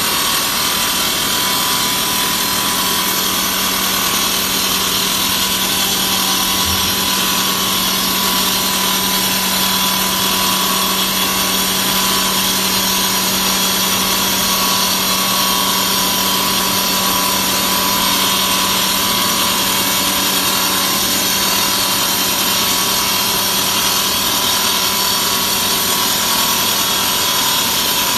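Diamond saw blade cutting through 3 cm Tropical Brown granite: a steady, unbroken hiss of stone cutting over a constant hum.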